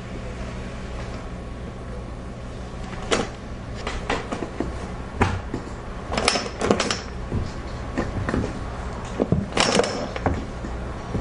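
A scattered series of short knocks and clicks, some in quick pairs, over a steady low hum.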